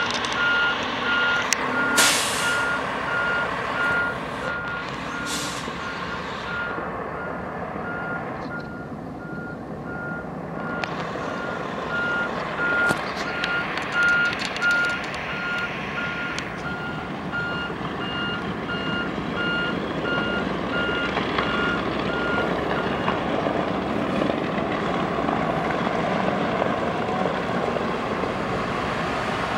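A vehicle's reversing alarm beeping steadily and stopping about three quarters of the way through, over the steady noise of an engine running.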